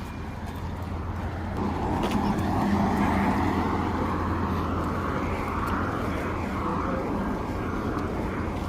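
Vehicle noise outdoors: a steady low hum, with a broader, louder wash of engine and traffic sound coming in about a second and a half in and holding to the end.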